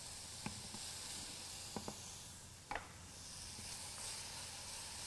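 Diced pork belly and garlic sizzling in a hot Korean stone bowl: a faint, steady frying hiss, with a few short ticks along the way.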